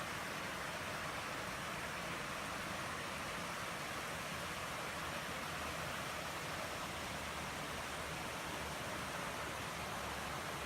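Steady rain falling: an even hiss that holds at one level throughout.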